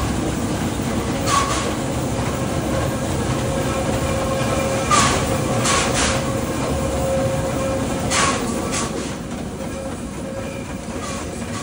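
Steam train running along the track: a steady running noise with irregular sharp clacks of the wheels over rail joints, loudest about five seconds in, and a faint steady whine underneath.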